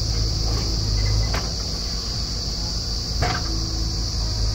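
Steady high-pitched insect drone over a low, steady engine rumble, with a sharp knock about three seconds in.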